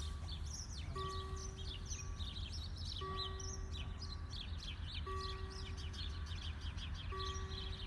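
Electronic warning bell of a German BÜS 2000 level crossing ringing a steady tone of about a second, repeated every two seconds, the signal that the crossing is closing for an approaching train. Birds chirp busily throughout.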